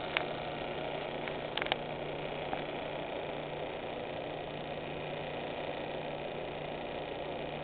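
Small vintage metal lathe running with no load, its belt-driven electric motor and spinning chuck giving a steady hum. A few light clicks sound in the first two seconds.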